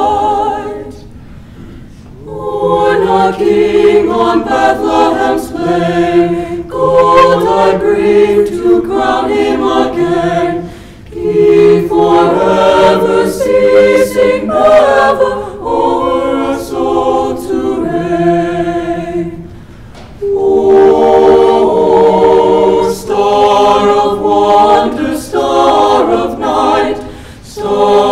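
Mixed-voice high school choir singing a Christmas carol a cappella, in long phrases with brief breaks for breath about every eight to ten seconds.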